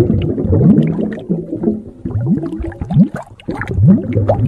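Underwater bubbling sound effect: a busy stream of gurgles, pops and short rising blips.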